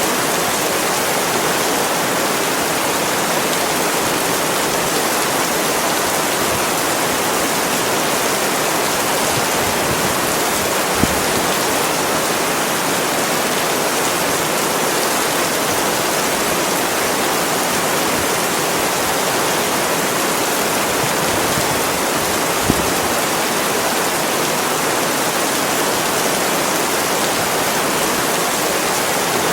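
Steady, continuous rain, an even dense hiss with no let-up, with a single louder drop tick about eleven seconds in and another near twenty-three seconds.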